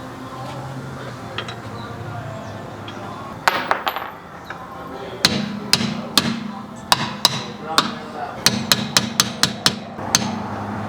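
Hammer blows on metal while working on a stripped, seized lug nut. A quick cluster of strikes comes about three and a half seconds in, then a run of about a dozen strikes, two or three a second, over the next five seconds.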